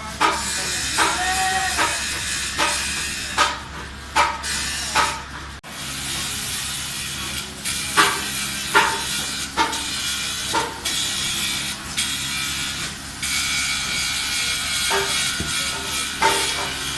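Sharp knocks repeating irregularly, about one a second, over a steady hiss, from tractor tyre repair work.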